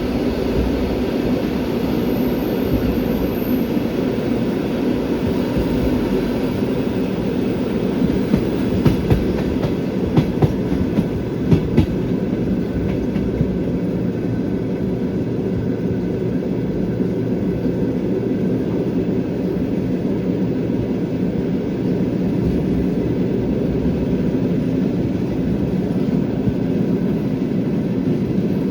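Passenger train's wheels rolling over the rails, heard from aboard the moving train: a steady rumble with clickety-clack over the rail joints, and a run of sharp clacks about a third of the way through.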